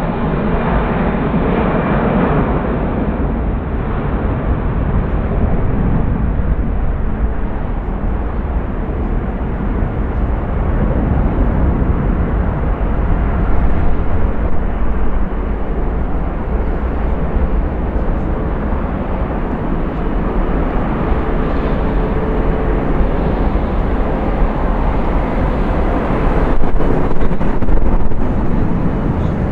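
Jet airliner engines running at takeoff power: a loud, steady rumble with slight swells, and a few sharp knocks near the end.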